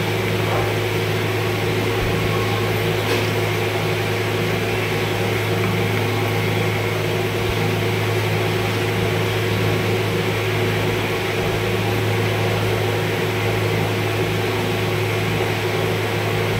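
A steady low mechanical hum, as of a running electric appliance motor, unchanging throughout.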